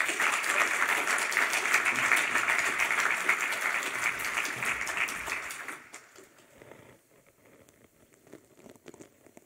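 Audience applauding; the clapping dies away about six seconds in.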